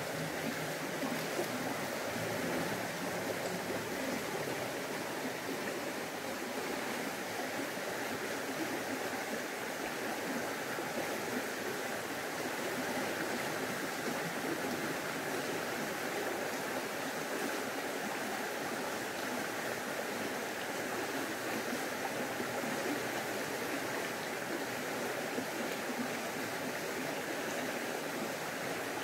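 Steady rush of running stream water, an even noise that holds without breaks.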